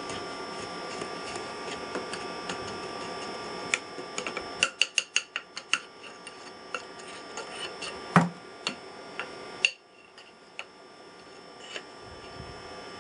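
A metal rod tapping and knocking against a freshly cast metal pulley and its sprue stubs as it is broken out of the sand mould: a quick run of sharp metallic taps about five seconds in, then scattered clicks and a heavier knock with a dull thud near the middle. A steady hum underneath.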